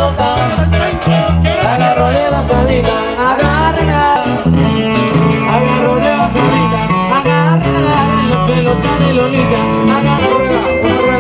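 Live band music: several guitars playing, with quick melodic runs over a strummed rhythm and a stepping bass line underneath.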